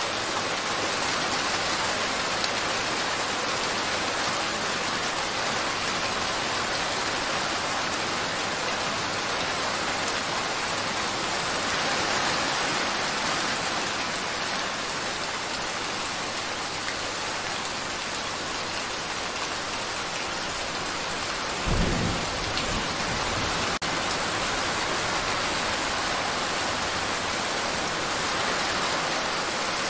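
Steady rain. About two-thirds of the way through there is a short, low rumble of thunder.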